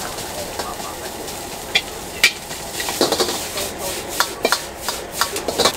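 Metal ladle scraping and knocking against a wok as fried rice is stir-fried over a high gas flame, with a steady sizzling hiss underneath. The ladle strikes are scattered at first and come in quick clusters in the second half.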